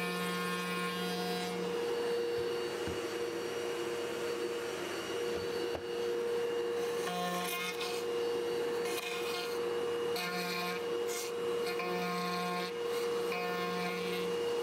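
Table-mounted router running at a steady high whine while cutting cavities into a wooden guitar body along a template; the rasp of the bit in the wood comes and goes every second or so as the body is pushed across the table.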